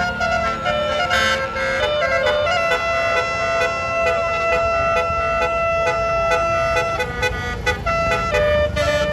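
Tour bus's telolet basuri musical horn playing a tune: a run of steady held notes stepping up and down, with one long note in the middle, over the low rumble of the bus.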